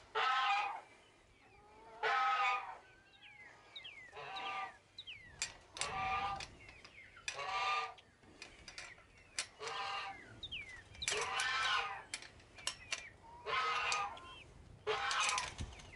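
Poultry in a pen calling loudly again and again, one pitched call every second or two, each lasting about half a second, with thin high rising peeps between the calls.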